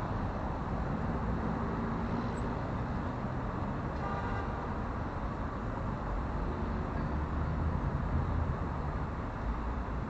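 Steady rumble of city traffic.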